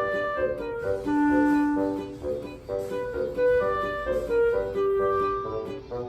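Background music: a light melody of held and quick notes, with a flute-like lead over plucked accompaniment.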